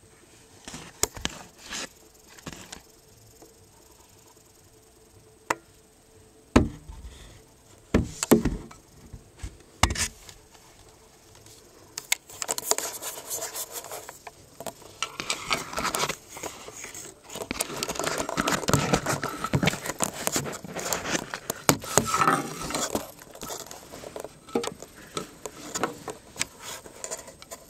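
Scattered knocks and bumps, then, from a little before halfway, a long stretch of dense rustling and scraping: handling and movement noise among wooden attic joists and fibreglass insulation.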